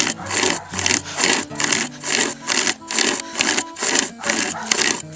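Hand-pulled pocket chainsaw, a flexible toothed chain drawn back and forth through a maple log, rasping in quick regular strokes, about three a second.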